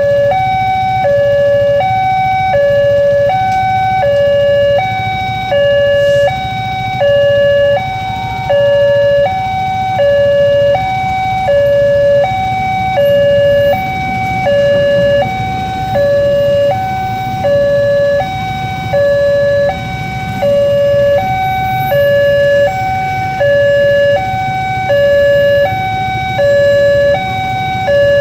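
Indonesian railway level-crossing warning alarm sounding continuously as an electronic two-tone signal, alternating a high and a low tone of about half a second each. A low rumble from a passing train builds under it from about halfway through.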